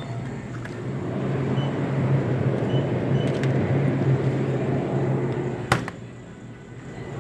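A road vehicle's engine running with a steady low hum, growing louder for several seconds, then a sharp click after which it drops away abruptly.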